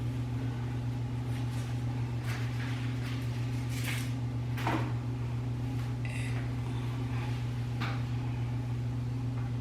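Faint rustles and a few light taps of hands working, as an elastic band is taken off a lace wig. A steady low hum continues underneath.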